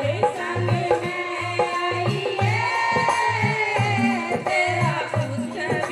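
Music: a voice singing a devotional song over a steady hand-drum rhythm, holding one long note about halfway through.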